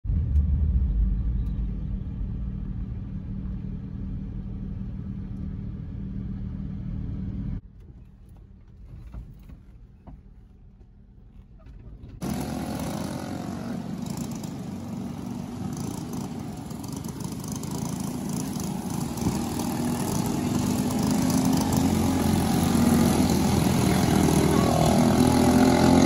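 Car cabin road noise while driving: a steady low rumble. After a drop to a quieter stretch, a louder rushing noise comes in suddenly about twelve seconds in and slowly grows louder.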